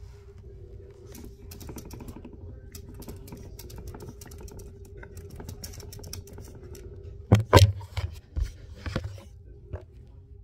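Small dog's claws clicking and scratching rapidly against mirror glass, with a few much louder knocks about three quarters of the way through as the paws strike the mirror.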